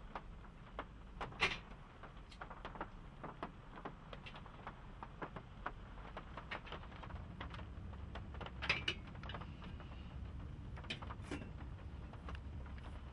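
Kitchenware being handled at a counter: scattered light clicks and knocks, with two sharper clinks about a second and a half in and near nine seconds, over a low steady hum.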